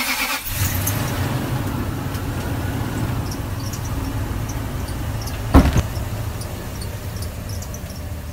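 Pickup truck engine running steadily as it drives along, slowly fading, with one sharp thump about five and a half seconds in.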